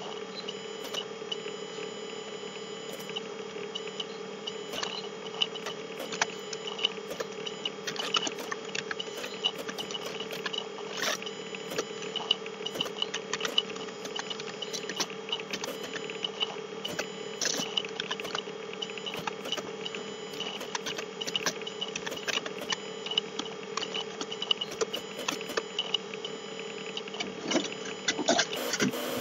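Computer keyboard typing: irregular key clicks in quick runs and pauses, over a steady background hum.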